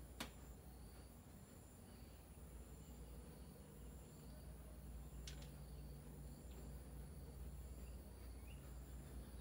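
Quiet background: faint high insect chirping repeating about once a second over a steady low hum, with two sharp clicks, one right at the start and one about halfway through.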